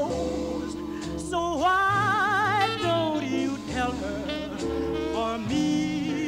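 Vocal blues record played back from a 78 rpm disc: a voice sings over a band, holding a long note with wide vibrato about a second and a half in.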